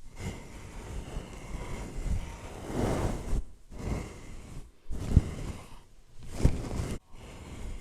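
ASMR brushing of a microphone: repeated swishing strokes, each sounding like wind or surf up close, broken by short pauses, with two soft thumps in the second half.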